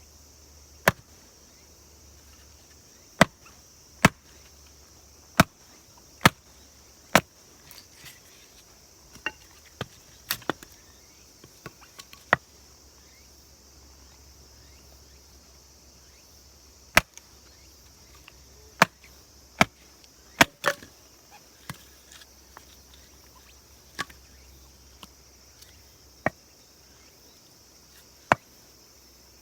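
Sharp single knocks, about twenty at irregular intervals, some in quick pairs, over a steady faint high hiss.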